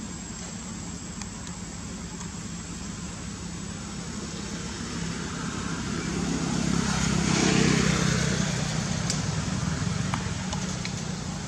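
A motor vehicle's engine hum passing by, growing louder to a peak about two-thirds of the way through and then fading.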